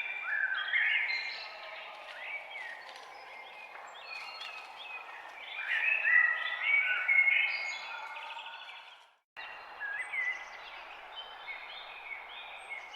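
Many birds chirping and calling together over a steady background hiss. The sound cuts out completely for a moment about nine seconds in, then the chirping resumes.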